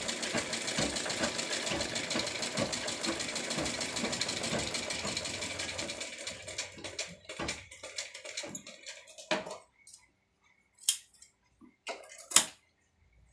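Domestic sewing machine stitching with a rapid, steady clatter that slows and stops about six seconds in. A few sharp metallic clicks follow, the loudest near the end, as the thread is snipped with scissors.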